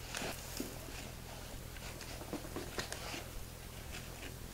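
Quiet handling sounds of butcher's twine being tied tight around a lamb's neck on a spit: soft rustling with a few light clicks.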